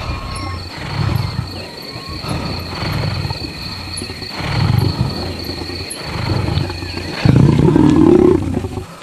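Lion growling and roaring in a run of low, deep calls about a second apart, the loudest and longest one about seven seconds in.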